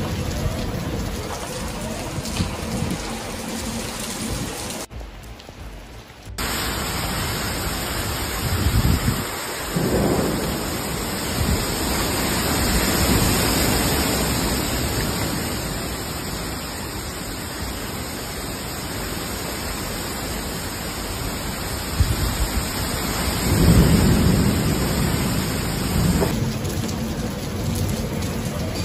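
Thunderstorm: steady hiss of heavy rain, with deep rolls of thunder about ten seconds in and again near the end. The sound briefly drops away about five seconds in.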